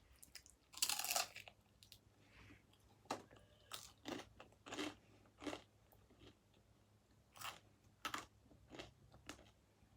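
Close-up crunching of a person biting into and chewing pizza crust: one louder bite about a second in, then a steady run of short crunches, one every half second or so.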